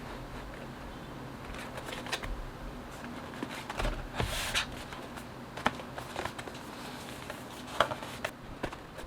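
Scattered, irregular plastic clicks and taps from a mechanical keyboard being worked on by hand: keycaps and Gateron Milky Yellow switches clacking, with no steady typing rhythm.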